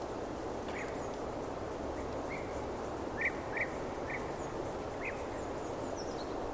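Forest ambience: a steady rushing background noise with a bird calling in short chirps every half second to a second, the loudest two about three seconds in.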